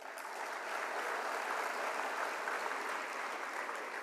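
Audience applauding steadily, the clapping building up in the first moment.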